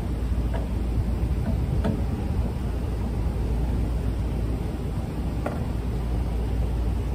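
Steady wind rumble on the microphone, with a few faint metal taps from a hammer driving a V-belt pulley onto an electric motor's shaft.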